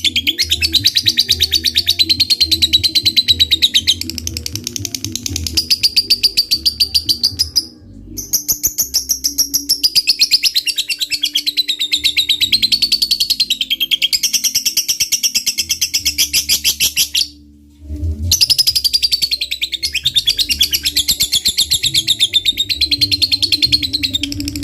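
Lovebird giving its long 'ngekek' call: a rapid chattering trill of many short notes a second, wavering up and down in pitch, broken by two brief pauses about a third and two-thirds of the way through.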